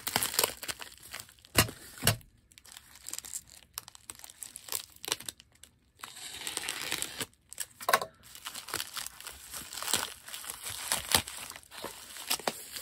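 Packaging bag crinkling and tearing as a box is worked out of a tight bag: irregular crackles and snaps, with a longer rustle about six seconds in.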